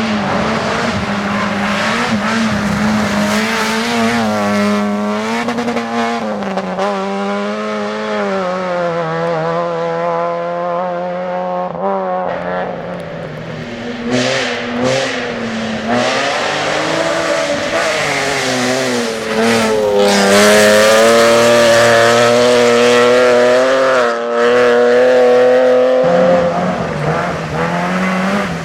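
Rally car engines being driven hard on a special stage, their pitch climbing and dropping again and again through gearshifts and braking. The sound changes abruptly about halfway through and again near the end, as one car gives way to the next.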